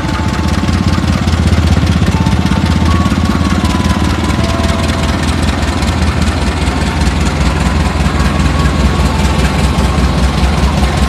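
CC 201 diesel-electric locomotive's engine running with a heavy low throb as it hauls a train away. It grows louder about a second in, then holds steady.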